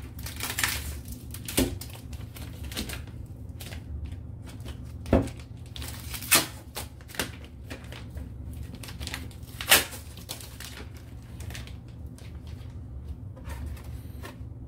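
Hands handling packing material and parts in and on a Bambu Lab P1S 3D printer's enclosure: irregular clicks, taps and knocks with light rustling. A few louder knocks are scattered through, over a steady low hum.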